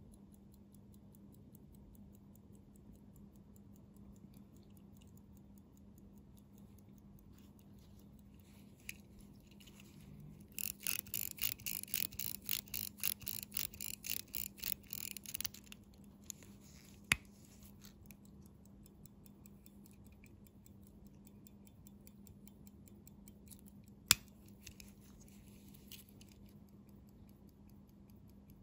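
British Army G.S.T.P. mechanical pocket watch ticking steadily and fast. For about five seconds in the middle, its crown is turned by hand: a run of louder ratcheting winding clicks. Later come two sharp single clicks, the second the loudest sound.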